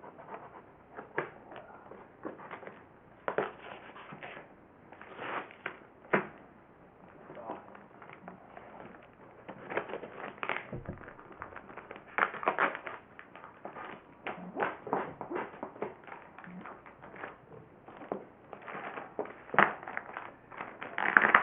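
Cardboard box and its packing being opened and handled: irregular rustling, tearing and knocking in short uneven bursts.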